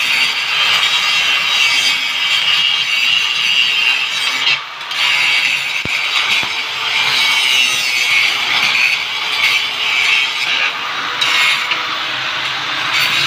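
Corded electric angle grinder biting into a rusty steel frame, a steady high grinding noise with sparks flying. It eases off briefly about four and a half seconds in, then bears down again.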